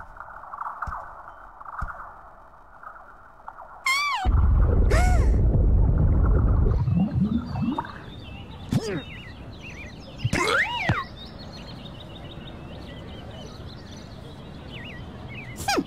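Cartoon sound effects: a sudden loud low rumble about four seconds in, with wordless character vocal sounds sliding in pitch. This gives way to park ambience with birds chirping and a few more sliding vocal squeaks.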